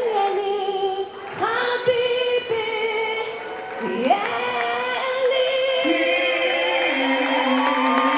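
A live pop duet of a woman and a man singing: the woman's voice sings short rising phrases, then a long held note from about four seconds in, and about six seconds in the man's lower voice joins below it in harmony.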